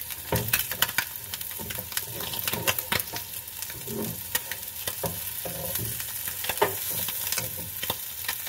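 Small marinated anchovies shallow-frying in a little oil in a nonstick pan: steady sizzling with many sharp pops and crackles, the popping that shows the underside is done and the fish are ready to turn. A spatula turns the fish, scraping and tapping against the pan.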